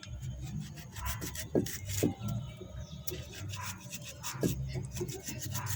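Irregular light scraping and rubbing with scattered small clicks, from handling mango and dishes while eating.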